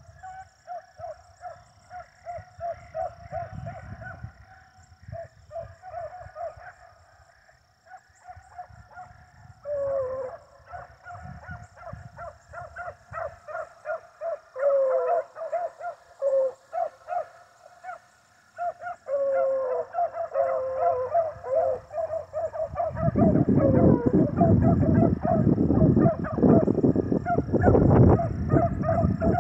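Pack of beagles baying on a rabbit's trail: many short, overlapping pitched calls with some long falling bawls, growing louder through the second half as the chase comes closer. Over the last six seconds a loud low rumble on the microphone is the loudest thing.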